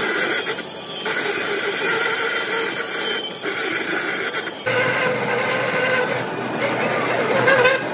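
Large manual lathe turning the rim of a big cast gear blank, the tool bit cutting the metal with a steady screeching, whining noise. A little over halfway through, the sound changes and a lower hum comes in.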